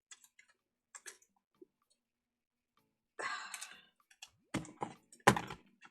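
Scissors cutting through sticker paper: a short rasping cut about three seconds in, followed by a few sharp clicks of the blades and paper.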